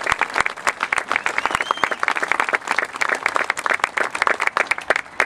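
Crowd applauding, with dense, fast clapping that stops abruptly near the end.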